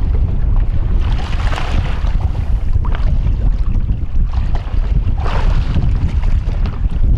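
Wind buffeting the microphone with a heavy low rumble, while small waves slap and splash against the side of a boat in short bursts every second or two.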